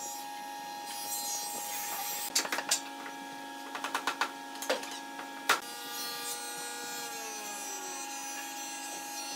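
Curved hardwood handrail pieces being handled and set down on a concrete floor, giving a cluster of sharp wooden knocks and clacks in the middle, over a steady hum of workshop machinery. Later, a whining machine tone slides down in pitch.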